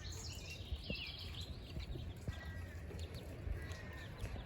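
Small birds chirping: a quick cluster of chirps in the first second, then short thin whistles about two seconds in and again about a second later, over a steady low rumble.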